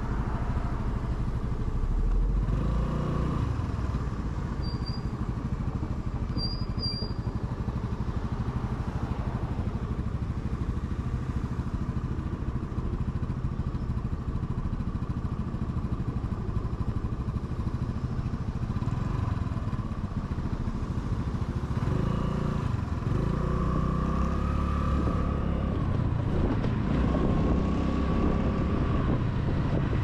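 Honda Navi scooter's small single-cylinder engine running under way. Its pitch rises and falls a few times near the end as the speed changes.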